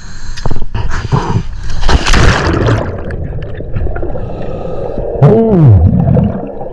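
A spearfisher going into the sea from a boat: a splash about two seconds in, then water and bubbles churning, heard muffled from below the surface. About five seconds in, a short pitched sound glides up and back down.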